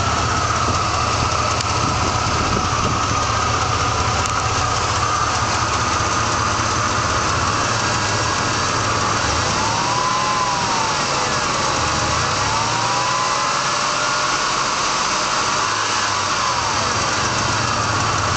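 Truck engine running with a clicking noise, blipped up and back down about three times in the second half. The clicking speeds up with the revs; the owner says it seems to come from the bottom of the engine and is not the lifters or an exhaust leak.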